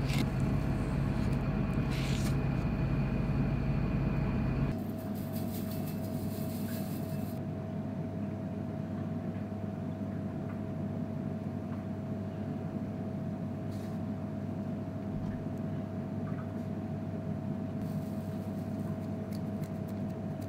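Steady hum of kitchen equipment with a thin constant whine through it. Louder for about the first five seconds, then it drops abruptly to a quieter level. A couple of faint light knocks near the start, likely a knife slicing fish fillet against a plastic cutting board.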